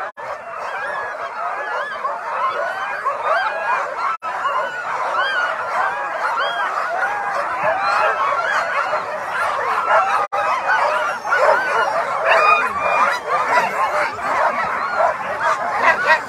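A dense chorus of many Alaskan husky sled dogs yelping and barking over one another, the eager excitement of teams in harness waiting to be let go.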